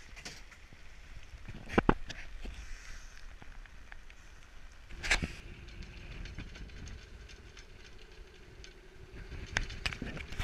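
Wind buffeting a deck-mounted camera's microphone and seas washing past a heeling sailing yacht's hull in rough weather, with sharp knocks about two and five seconds in and a faint steady hum from about halfway.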